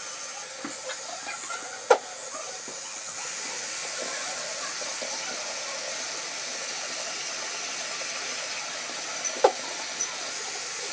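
Steady hiss with a couple of short sharp knocks, one about two seconds in and one near the end, and a few faint ticks.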